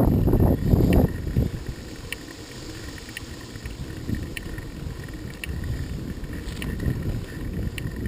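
Wind buffeting the microphone over a low rumble, heaviest in the first second, then quieter with faint ticks about once a second.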